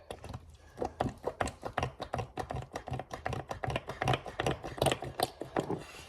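Utensil stirring a thick shampoo-based slime mixture in a bowl: a quick, steady run of clicking taps, about five a second.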